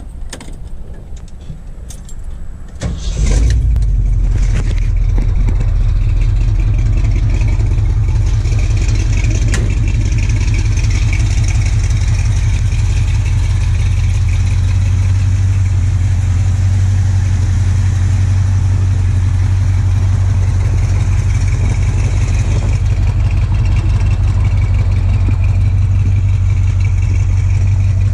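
1979 Jeep CJ7's AMC 360 V8 starting about three seconds in after a few clicks, then idling with a steady, low rumble.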